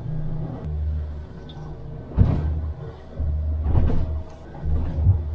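Boat engine drone heard inside the pilothouse cabin while underway, swelling and fading in level, with three sharp knocks about two, four and five seconds in.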